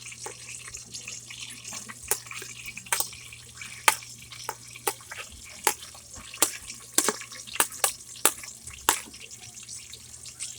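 Garlic sizzling in hot oil in a pressure cooker pot, a steady hiss broken by irregular sharp clicks.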